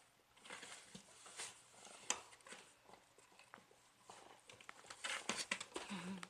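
A sleeping pet snoring: irregular noisy breaths with small clicks and snuffles, heaviest near the end, where a brief low hum sounds.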